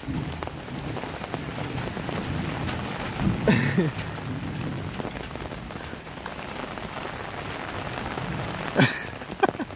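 Steady rain falling on the ground and surroundings. A brief louder sound breaks through about three and a half seconds in, and a sharp knock comes near the end.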